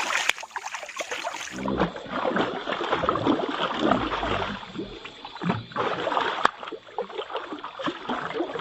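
Water splashing and sloshing irregularly as a hooked lembat catfish thrashes while being pulled in, with a sharp click about six and a half seconds in.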